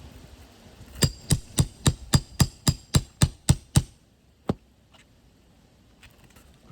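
Roofing hammer striking a nail puller in a quick run of about eleven sharp taps, roughly four a second, then one more tap, driving the puller's jaws under a roofing nail on a 3-tab asphalt shingle.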